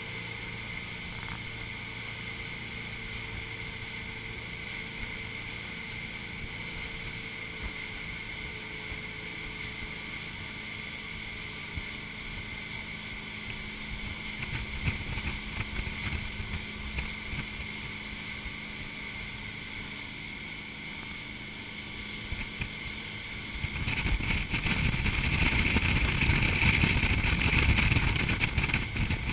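Ski boat's engine running steadily at towing speed, with water rushing past the hull. A louder rush of wind and water comes in for the last few seconds as the boat banks into a turn.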